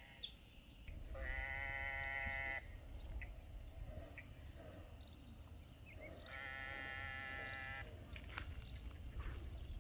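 Frogs calling from a rain-filled pond: two long, even, droning calls of about a second and a half each, several seconds apart.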